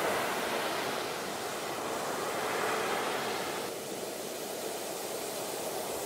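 Ocean surf: a steady rushing wash of waves breaking on a shore, easing a little past the middle and building again near the end.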